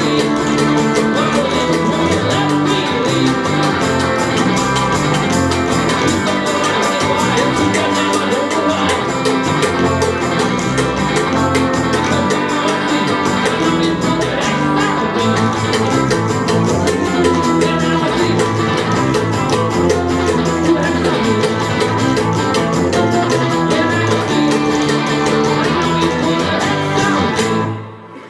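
Live band playing an up-tempo cowpunk song on acoustic and electric guitars with a steady strummed rhythm; the song ends abruptly about a second before the end.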